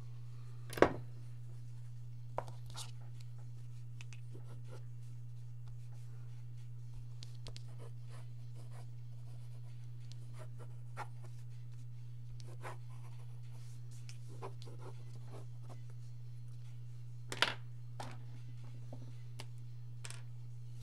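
Pencil lead scratching across paper in short sketching strokes, with two sharp knocks, one about a second in and a louder pair near the end. A steady low hum runs underneath.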